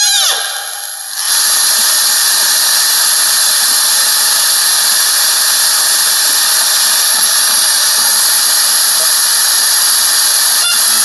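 Radio speaker hissing with loud, steady static, starting about a second in after a short quieter gap.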